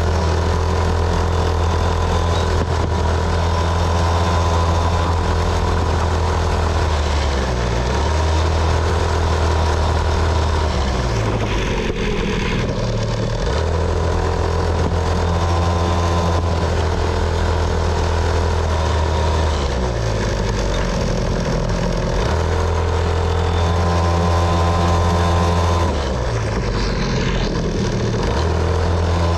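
Small dirt bike's engine running as it is ridden along, a steady low engine note that drops out and picks up again several times.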